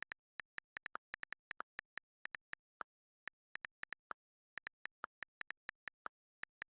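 Key-click sounds of rapid typing in a typing-test game: short, identical taps in quick irregular runs, broken by brief pauses, with dead silence between them.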